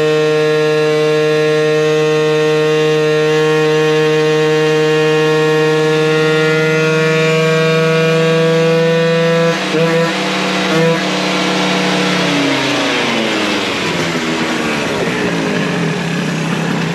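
Two-stroke Honda Elite AF16 scooter engine held at full throttle on a chassis dyno, its pitch creeping slightly upward. About nine and a half seconds in it briefly breaks up twice, then the revs fall away steadily as the run ends. The Smart Carb is set on the rich side.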